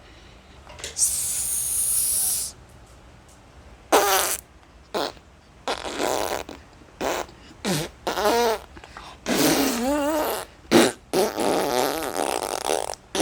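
A run of short fart sound effects played one after another, several with a wobbling pitch, with a hissing burst near the start.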